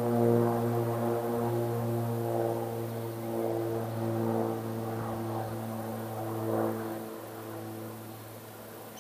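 Steady, low engine drone holding one pitch, fading over the last two seconds.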